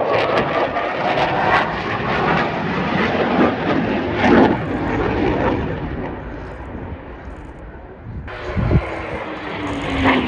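Eurofighter Typhoon fast jet's twin turbofans in a loud display pass, the jet noise swelling and easing. Near the end the sound surges back with a falling whine as the jet goes by.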